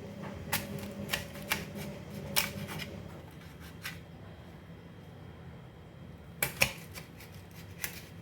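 A knife cutting through an unpeeled onion into quarters, making short sharp taps: five or so spread over the first three seconds, then a quick cluster of taps about six and a half seconds in.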